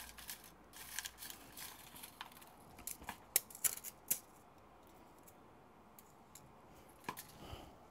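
Scattered light, sharp clicks and ticks of small tools and tiny surface-mount parts being handled on a workbench, most of them about three to four seconds in, over faint room tone.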